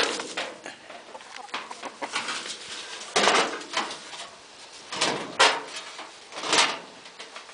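Chickens clucking, with four short loud calls in the second half.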